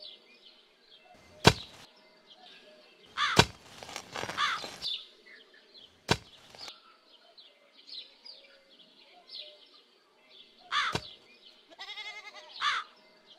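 An iron digging bar striking hard ground in heavy thuds a few seconds apart, some with a whooshing sweep. Birds chirp faintly between the strikes.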